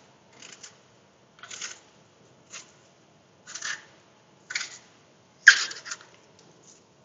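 Hand vegetable peeler scraping the skin off an apple in short strokes, about one a second, with the loudest stroke near the end.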